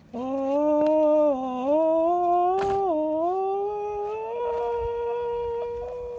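A person singing one long wordless held note that steps up and down in pitch and settles on a higher sustained note near the end. A short sharp click sounds about two and a half seconds in.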